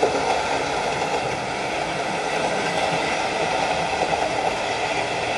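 Several OO-gauge model trains running at once around a layout, among them a Bachmann Class 25 diesel and a Wrenn A4 'Sir Nigel Gresley'. It is a steady rolling noise of model wheels on track and small electric motors.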